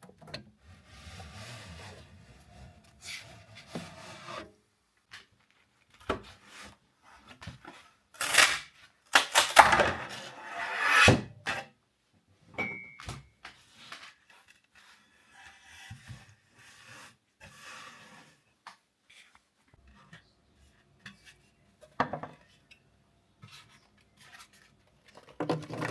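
Hard objects being handled: irregular rubbing, scraping and clacking, loudest about eight to eleven seconds in, with a short beep about twelve seconds in.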